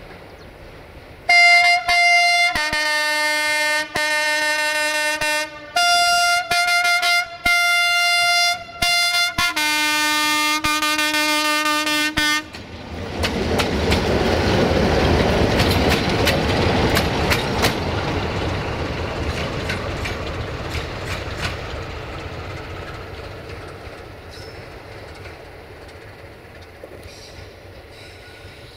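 Electroputere 060-DA (ST43) diesel-electric locomotive sounding its multi-tone horn in a run of long blasts, the chord changing from blast to blast, for about eleven seconds. It then passes close: its diesel engine runs and its wheels click over the rail joints. The sound is loudest as it goes by and fades steadily as it draws away.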